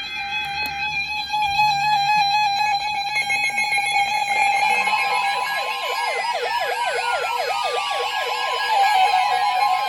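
Weather alert radios sounding their alarms for an incoming severe thunderstorm warning. A steady electronic alarm tone is joined about five seconds in by a fast, repeating warbling siren and a second steady tone, the NOAA Weather Radio warning tone.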